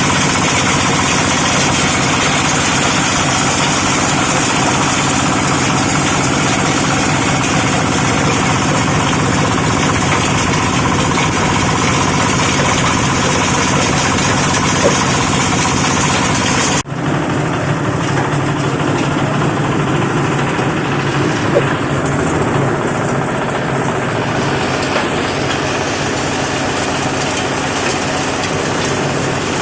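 8 HP diesel engine running steadily, driving a livestock-manure grinding machine, with a high hiss over the engine's low, even note. About 17 seconds in the sound changes abruptly and most of the high hiss drops away.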